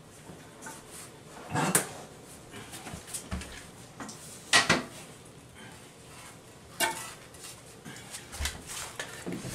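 Porcelain toilet being lifted off its floor flange and moved: a handful of hard ceramic knocks and clunks, the loudest about four and a half seconds in, with a couple of dull thumps.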